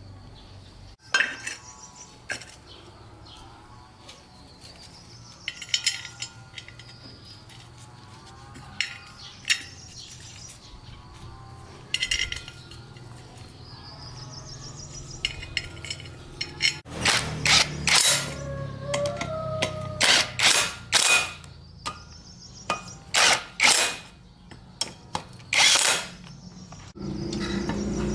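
Sharp clicks and knocks, like hand tools on metal during engine repair work, few at first and coming quickly in the second half, with faint chirping tones behind them. About a second before the end, a loud steady mechanical running sound begins.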